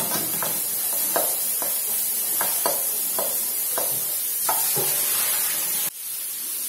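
Minced garlic sizzling in a nonstick wok, stirred with a wooden spatula whose repeated strokes scrape and knock against the pan. Near the end the sound drops suddenly to a quieter, steadier sizzle.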